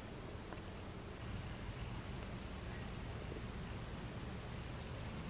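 Outdoor ambience: a steady background hiss with a low rumble, and a few faint high chirps about half a second in, around two to three seconds in, and near the end.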